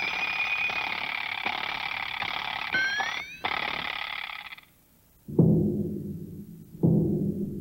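A hissing, whistling sound effect with a pitch that slides upward twice, cutting off after about four and a half seconds. After a short pause, a large bass drum is struck twice, about a second and a half apart, each stroke booming and ringing away.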